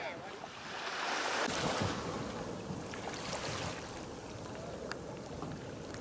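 Small waves washing onto a sandy beach, with a wave rushing in about a second in, and wind buffeting the microphone.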